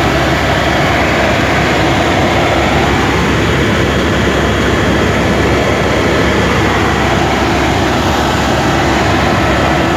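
Helicopter engine and rotor noise heard from inside the cabin in flight: a loud, steady drone with a deep rumble underneath.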